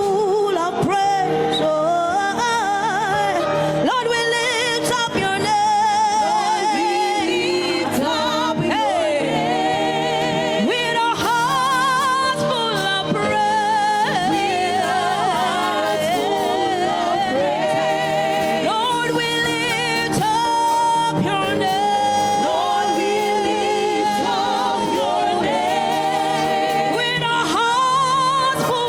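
Gospel worship music: sung melody with a wavering vibrato over steady accompaniment, continuing without a break.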